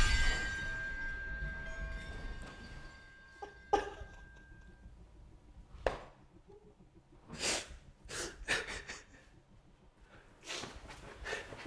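A young man sobbing: ragged, broken breaths and sniffs in short bursts every second or two. It opens on the dying tail of a loud crash, with a faint high ringing tone fading out over the first few seconds.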